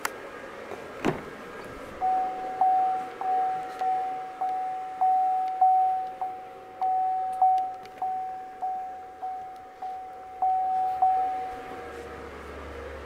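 A click about a second in as the front door of a 2017 GMC Acadia is unlatched, then the cabin's door-open warning chime dinging at one steady pitch, about sixteen evenly spaced dings roughly two every second, stopping near the end.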